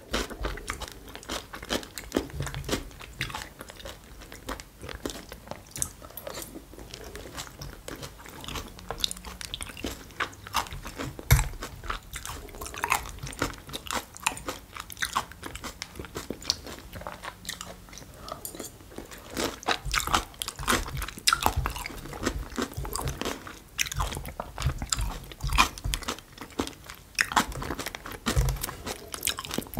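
Close-miked eating: crunchy bites and wet chewing of food, with many small clicks and crackles throughout.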